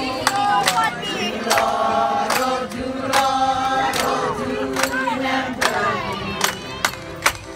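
A mixed group of men and women singing together into microphones, with hand claps keeping a steady beat about once a second.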